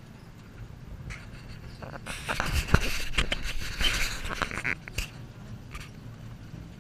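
Leafy bush branches brushing and scraping along the open side of a moving narrow-gauge train car: a loud rustle with many sharp clicks for about three seconds that stops suddenly, over the low steady rumble of the train running.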